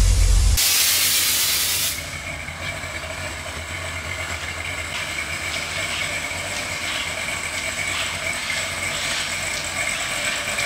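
Loud hiss of escaping air that cuts off sharply about two seconds in, followed by a softer steady hiss with a faint high whine.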